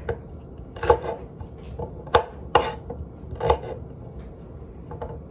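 A paring knife chopping celery on a wooden cutting board: about four sharp knife strikes against the board at uneven intervals, with a few fainter taps between them.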